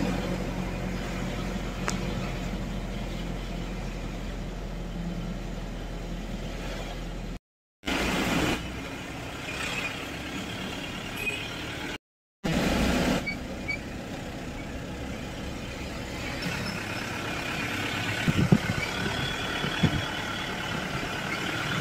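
A motor vehicle's engine and road noise while driving, broken twice by brief silences, with a few light knocks near the end.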